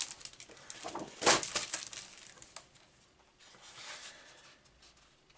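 Clear plastic packaging crinkling and sheets of scrapbook paper rustling as they are handled and slid out of the sleeve, in a run of short rustles with the loudest about a second in, then quieter handling.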